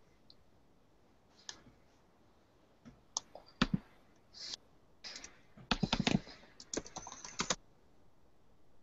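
Typing on a computer keyboard: irregular clusters of sharp keystrokes, the busiest run about six to seven and a half seconds in.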